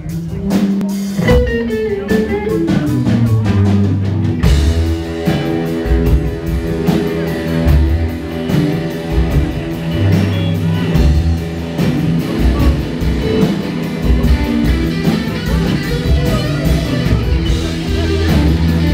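Live rock band playing electric guitars, bass and drums. It starts sparse with a falling guitar line, and about four and a half seconds in the full band comes in with crashing cymbals.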